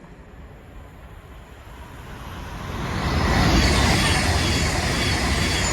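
Class 390 Pendolino electric train approaching through the station. Its rush of wheels and air, with a low rumble, builds over the first three seconds to a steady loud level.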